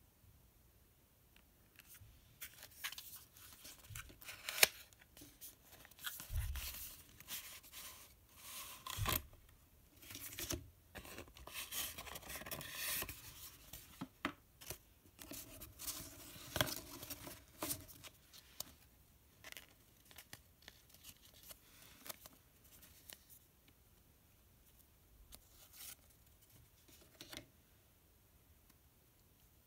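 A cardboard postcard box and paper postcards being handled: irregular rustling, sliding and scraping, with a few sharper taps and knocks. The sounds are busiest in the middle and thin out near the end.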